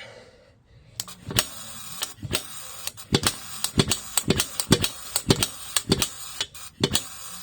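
Barco H-6 gasoline jackhammer's single-cylinder engine firing irregularly, a dozen or so uneven sharp pops over a steady hiss, then cutting out near the end. It is sputtering rather than running smoothly, which the owner puts down to it not getting enough fuel.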